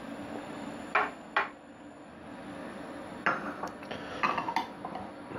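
Wort boiling steadily in a stainless steel pot on a gas stove, with two sharp clinks about a second in and a quick run of clinks and knocks of kitchenware from about three to nearly five seconds in.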